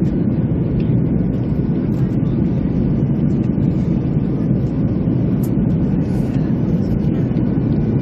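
Steady low drone inside an airliner passenger cabin, even and unbroken throughout.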